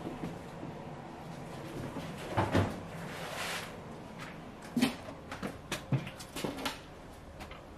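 Sliding screen door knocking and sliding open, two loud knocks then a brief rushing slide, followed by a run of light clunks and knocks from a plastic wheelie bin and cardboard rubbish being handled.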